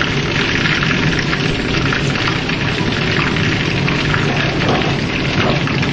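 Pot of chicken noodle soup simmering uncovered on low heat: a steady bubbling hiss with many small pops, over a steady low hum.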